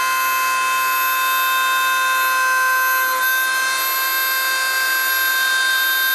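Dremel rotary tool on a Stepcraft CNC machine running at high speed with a steady high whine, its tone changing slightly about three seconds in, over the rush of a shop vacuum pulling dust through the exhaust adapter's hose.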